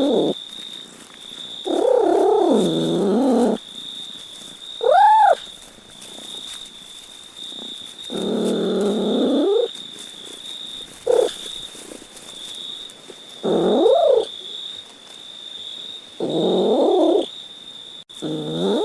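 A domestic cat meowing over and over, about six meows with pauses between them: most are long, drawn-out meows, one is a short high rising-and-falling call and one is very brief. A faint steady high whine runs underneath.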